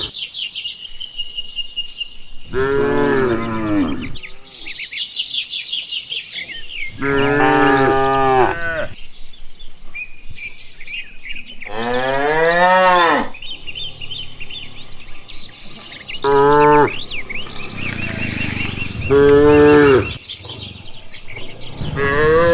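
Cows mooing, a long moo every few seconds, about six in all, some falling in pitch. Birds chirp between the moos.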